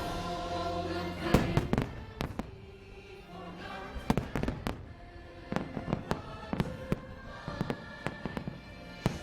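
Fireworks going off in a rapid, irregular string of sharp bangs, starting about a second in, over the show's music.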